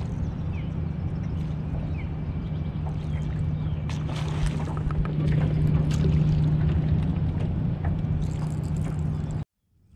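Small boat's motor running with a steady low hum. There is a brief hissing surge about four seconds in, and the sound cuts off suddenly near the end.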